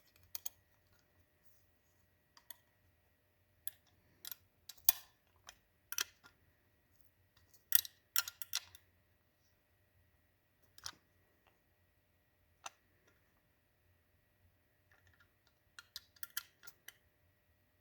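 Scattered metal clicks and clinks of an 8 mm wrench working the small round-headed nuts that hold bumper spikes on a chainsaw, snugging them tight. The clicks come singly and in short irregular clusters with pauses between them.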